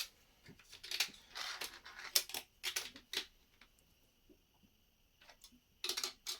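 Plastic Lego pieces clicking and clattering as they are handled and pressed onto plates: a run of sharp clicks over the first three seconds, a pause, then a few more near the end.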